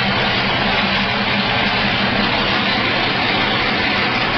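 Engine of a 1974 Toyota FJ40 Land Cruiser idling steadily, running through an open header and exhaust pipe with no muffler.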